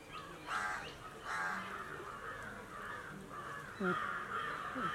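Crows cawing, a run of calls one after another, the first two the loudest.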